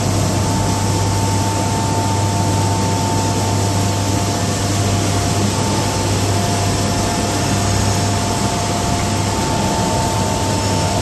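Steady industrial din of steel mill furnace machinery: a loud, even rush of noise with a deep hum and a steady high whine, and no clanks of scrap striking.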